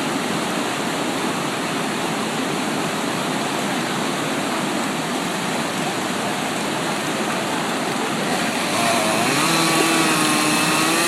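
Steady rush of river water; about nine seconds in, a chainsaw engine comes in over it, running at a fairly even pitch that wavers slightly.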